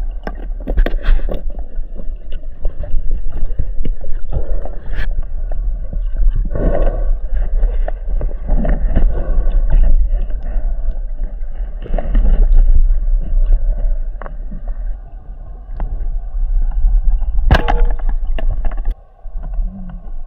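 Underwater sound heard through an action camera's housing as a freediver swims: a heavy, steady rumble of moving water with scattered clicks and knocks, and a faint steady hum above it. The sound drops away abruptly near the end.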